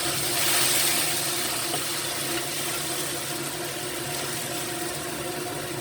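Pork ribs going into a pan of boiling braising liquid with shiitake mushrooms: a swell of sizzling and bubbling just after the start that settles into a steady simmering hiss, over a steady low hum.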